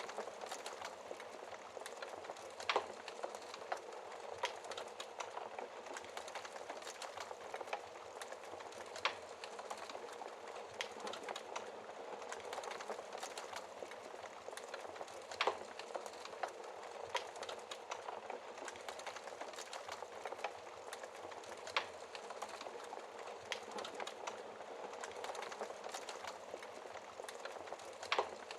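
Wood fire crackling in a fireplace: a steady hiss of small pops and crackles, with a louder sharp snap every several seconds.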